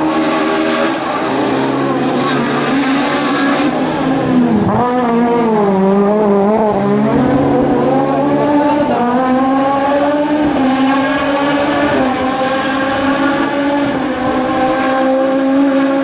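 Peugeot 306 Maxi kit car's naturally aspirated four-cylinder rally engine at high revs. About five seconds in the pitch dips and wavers as it brakes and changes down, then it climbs steadily through the gears, with an upshift around twelve seconds.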